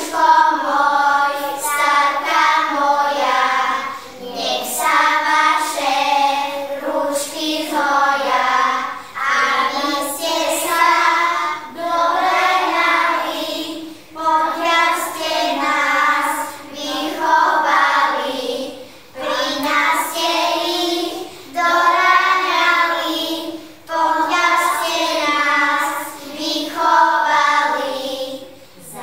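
A group of young children singing a song together, in short phrases with brief breaths between them.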